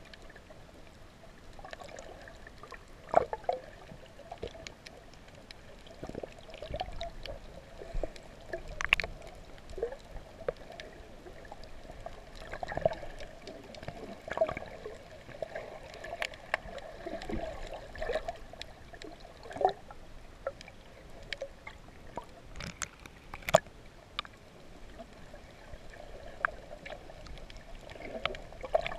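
Muffled underwater sound of water moving and gurgling around a submerged camera, with scattered sharp clicks and pops.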